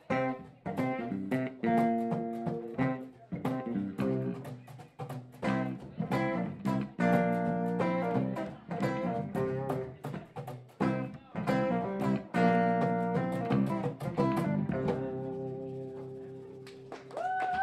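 Acoustic guitar playing an instrumental piece in picked notes and strummed chords. A final chord rings out and fades over the last few seconds, with a short rising tone just before the end.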